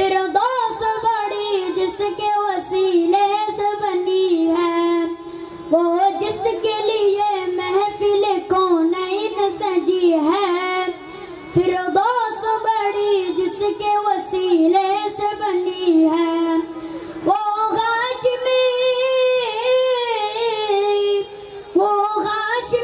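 A boy singing a naat solo into a microphone. The melody is long and ornamented, sung in phrases with short breaks for breath between them.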